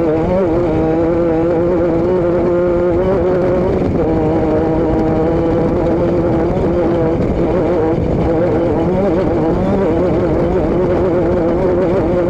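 A vehicle engine droning at steady revs, its tone wavering slightly in pitch, over a continuous rushing noise.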